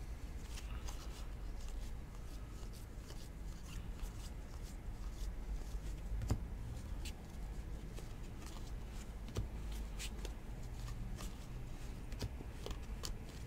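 A stack of 2019 Topps Series 2 baseball cards being thumbed through by hand, card stock sliding and flicking off the stack in soft, scattered clicks. One sharper click comes about six seconds in.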